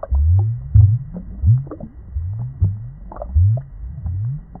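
Muffled underwater bubbling and gurgling in an aquarium: low pulses about twice a second, each rising in pitch, with small clicks of bubbles above them.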